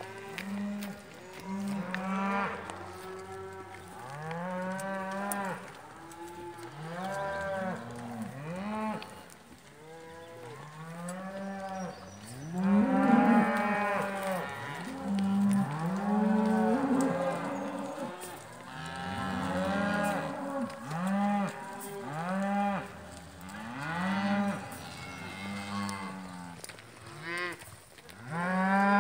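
A herd of cattle mooing as they are driven along, many overlapping calls following one after another, loudest about halfway through and again at the end.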